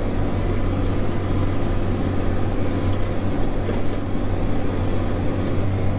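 Diesel farm tractor engine running steadily.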